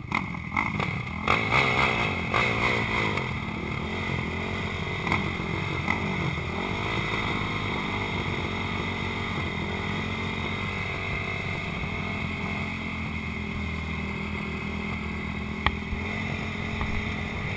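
Honda TRX450R quad's single-cylinder four-stroke engine idling at a start line, blipped up and down a few times in the first three seconds, then holding a steady idle, with other race quads idling alongside. A single sharp click near the end.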